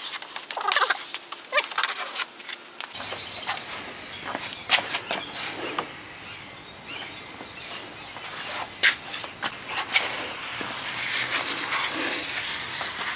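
Plastic spreader scraping and squeaking over plywood as epoxy is spread on, in quick repeated strokes for the first few seconds. After that, scattered clicks, rustles and knocks of someone moving and handling things close by.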